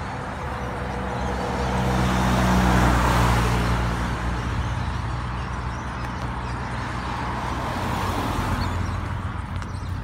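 Car engine running with tyre and road noise, swelling louder about two to three seconds in and again near the end.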